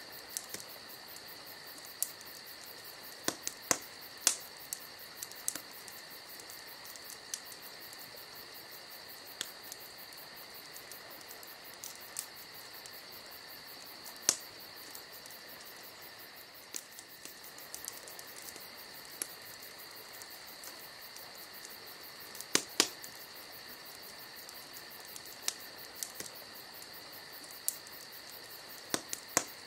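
A steady high-pitched trill with a fast, even pulse, like crickets, broken by scattered sharp clicks, a few louder ones about 4, 14 and 23 seconds in.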